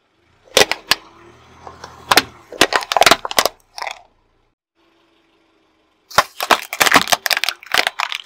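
Hard plastic cracking and snapping under a car tyre: a run of sharp cracks as ladybug-shaped plastic containers are crushed. After a short pause, a second dense burst of cracking as a blue plastic object is flattened.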